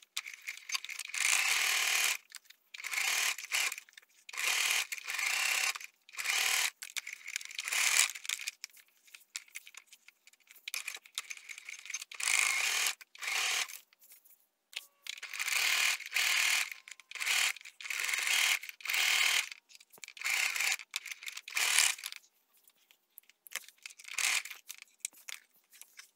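Singer sewing machine stitching a fabric face-mask seam in short runs of about a second each, stopping and starting over and over. The runs stop a few seconds before the end, leaving only a few short, fainter sounds.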